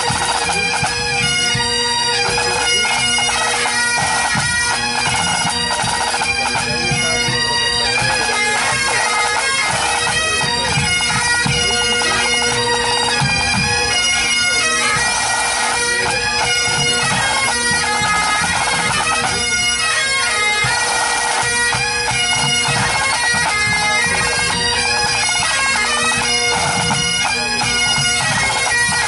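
Full pipe band playing: Great Highland bagpipes sounding a steady drone under the chanter melody, with snare, tenor and bass drums beating along.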